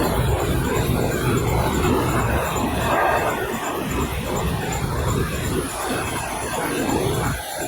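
Four-lane food-bag cutting and making machine running: a steady, dense mechanical noise with a fast, regular ticking.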